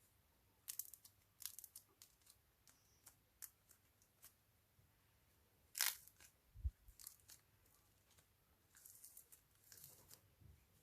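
Slime being squeezed and pulled apart, giving faint sticky clicks and crackles. There is one louder tearing crackle about six seconds in, followed by a low thump.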